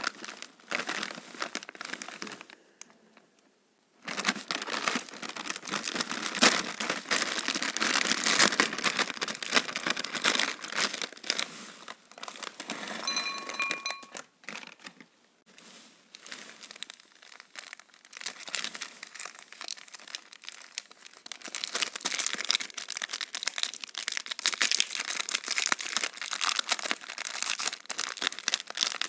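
Plastic and foil snack wrappers crinkling and tearing as they are handled and ripped open, in dense bursts of crackle with a short pause about three seconds in.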